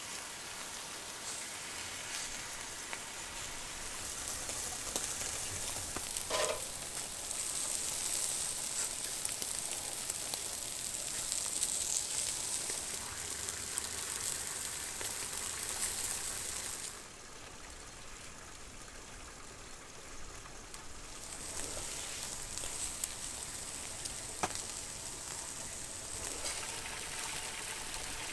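Bone-in beef rib steaks sizzling on a grill grate, a steady hiss that drops away for a few seconds past the middle. A short clink about six seconds in.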